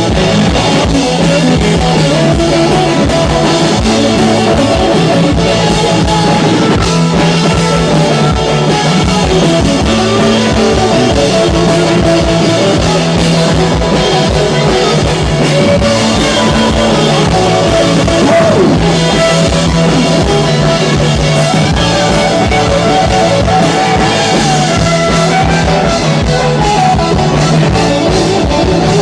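Live rock band playing a song loudly: electric guitar over a steady drum kit beat.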